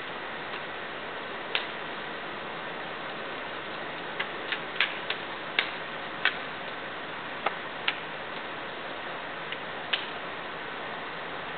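Hands catching and slapping a drill rifle as it is spun and tossed: about ten short, sharp smacks at uneven intervals, bunched between about four and eight seconds in, over a steady hiss.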